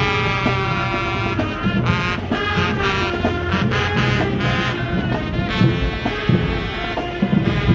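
High school marching band playing: brass section sounding held and moving notes over drums.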